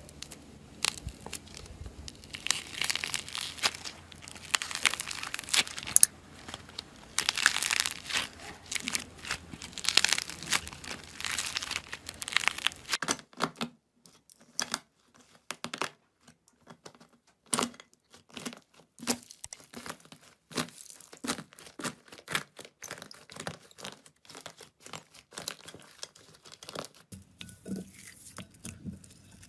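Slime being squeezed and stretched by hand: dense crackling for about the first half, then a change to sparser sticky clicks and small pops.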